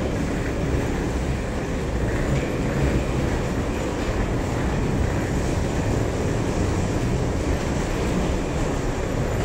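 Steady low rumble of several wheeled suitcases rolling along a walkway floor.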